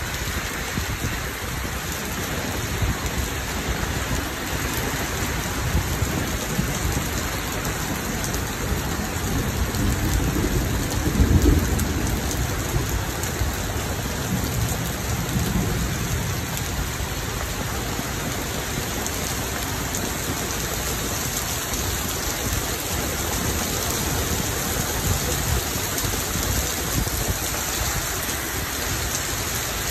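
Heavy rain falling steadily onto the street and foliage, with a low rumble of thunder swelling about ten seconds in and fading over several seconds.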